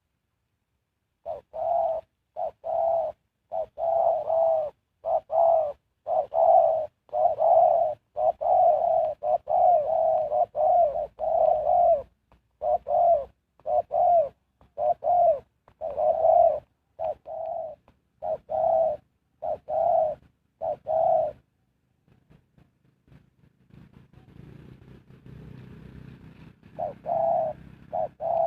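Spotted dove cooing: a long series of low coos in quick succession that stops about twenty seconds in, then two more coos near the end.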